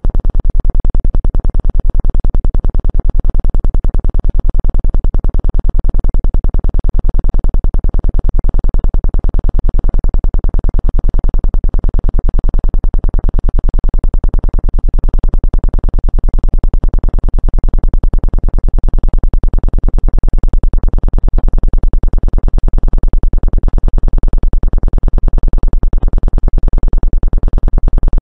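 Synthesized Rife frequency tone: a loud, low electronic buzz with a fast, even pulse, steady and unchanging in pitch.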